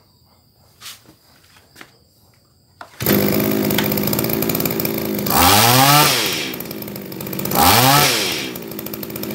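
Small two-stroke engine of a Komatsu BC2310 pole hedge trimmer starting about three seconds in after a couple of faint clicks, then running and revved twice, its pitch rising sharply and dropping back to idle each time. It starts with a light pull, and the throttle response is very quick.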